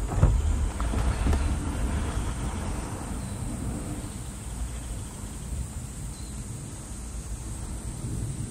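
Rolling thunder, loudest right at the start and dying away over the first two or three seconds into a low steady rumble with a faint hiss.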